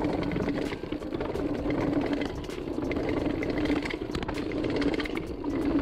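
Mountain bike rolling down a long concrete stairway: a dense, continuous run of knocks and rattles as the wheels drop step after step, with a steady buzz underneath.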